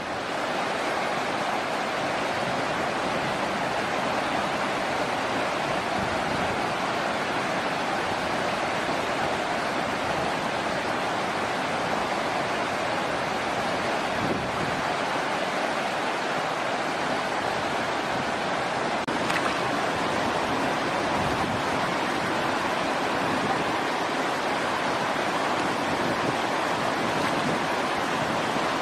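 Steady rushing of flowing water, unbroken and even throughout.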